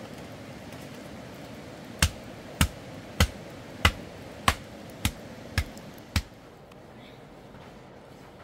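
Eight sharp knocks in a steady rhythm, a little under two a second, beginning about two seconds in, over a steady background hiss.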